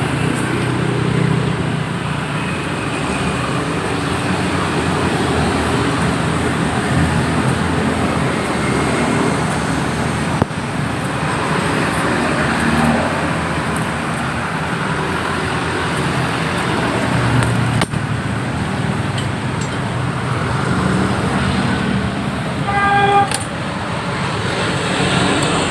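Road traffic: motor vehicles running and passing steadily, with a short horn toot near the end.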